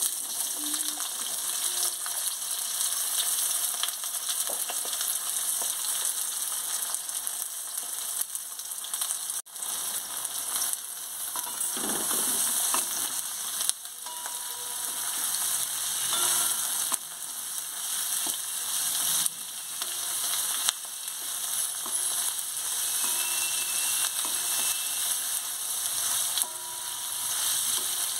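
Chopped red onions sizzling in hot oil in a metal wok, stirred and scraped about with a wooden spatula.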